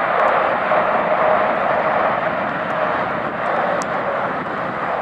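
Jet noise from a Boeing 787-8 Dreamliner's Rolls-Royce Trent 1000 engines: a loud, steady rushing sound that slowly gets a little quieter.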